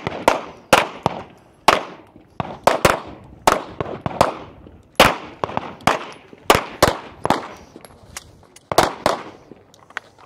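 Pistol shots from several shooters firing at once, at an uneven pace of roughly two a second and sometimes in quick pairs, each shot trailing off in a short echo.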